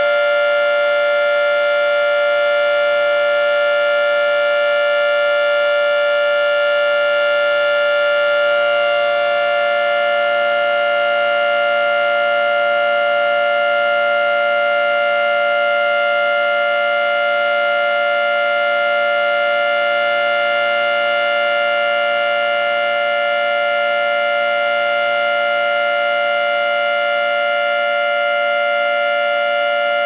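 Federal Signal civil defense siren sounding a steady tone at full pitch during a test, two close notes held together, neither rising nor falling.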